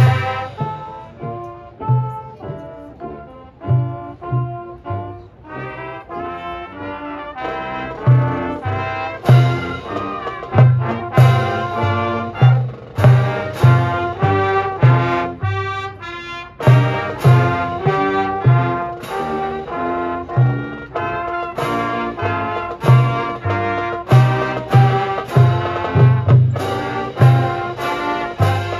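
Marching band playing its field show: brass carrying the melody over a steady beat of low drum hits. It plays softer for the first several seconds, then the full band comes in loud about eight seconds in.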